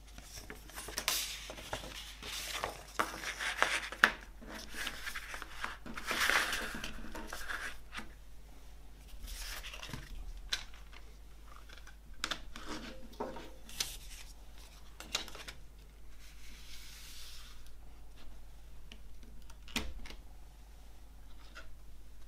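Rustling and crinkling as a paper CD booklet is folded and handled, then light clicks and taps of a plastic CD jewel case being handled and opened.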